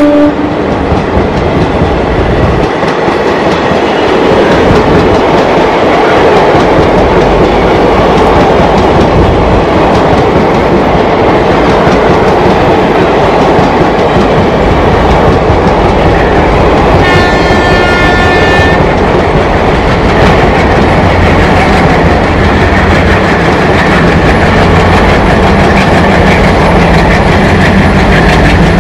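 WDM-3A ALCo diesel-electric locomotive with its 16-cylinder ALCO 251 engine chugging steadily under power as it hauls an empty passenger rake past, with a deep rumble and the wheels clacking over the rail joints. A train horn sounds once for about a second and a half a little after halfway.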